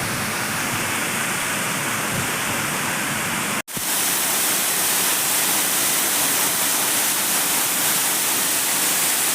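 Waterfall rushing steadily. It cuts out for an instant about three and a half seconds in, then comes back slightly louder and brighter.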